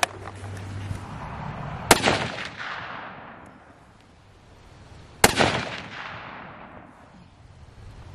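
.308 Winchester rifle firing twice, about three and a half seconds apart, each shot ringing out and fading over about two seconds.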